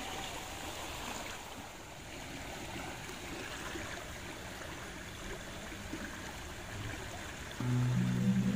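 Fast-flowing river current rushing steadily. Background music comes in near the end.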